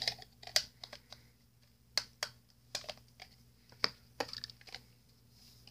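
Irregular sharp plastic clicks and taps as the hard plastic shell of a Bop It BB-8 toy is handled and turned in the hands.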